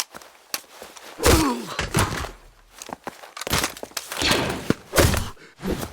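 Clone trooper combat sound effects: a series of separate thuds and hits, about six in all, several with a short falling grunt or pained cry from a man's voice.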